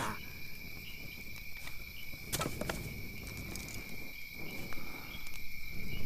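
Night insect ambience: crickets trilling steadily on one high note, with two sharp clicks a little over two seconds in.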